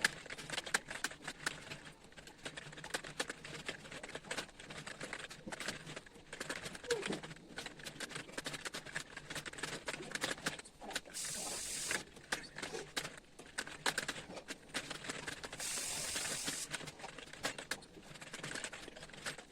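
Fast, irregular keystrokes on an Intex computer keyboard, a steady stream of clicks from continuous touch typing. A hiss about a second long comes in three times, about eleven, sixteen and nineteen seconds in.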